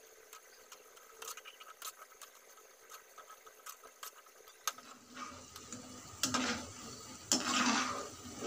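Moong and urad dal fritters deep-frying in oil in a metal kadai, a faint crackling sizzle. From about halfway a slotted metal spoon stirs and scrapes the fritters around the pan, louder near the end.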